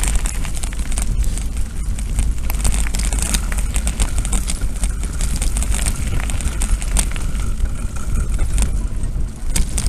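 Mountain bike riding over a gravel dirt track: a steady rumble of tyres and wind on the microphone, with frequent clicks and rattles as the bike and camera jolt over bumps.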